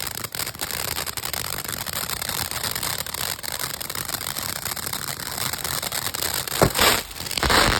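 Hybrid firework fountain spraying with a steady hiss and crackle, then a sharp bang about six and a half seconds in and a loud rushing burst near the end as its air bursts go off.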